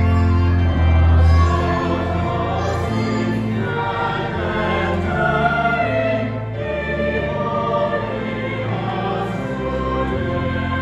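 A choir singing slow, held notes over sustained low bass notes.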